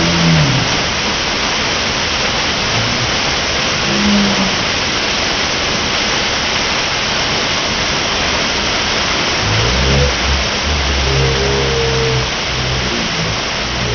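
Steady, loud roar of a waterfall, with water pouring and crashing. About ten seconds in, a low droning tone of unclear origin rises and falls over the roar.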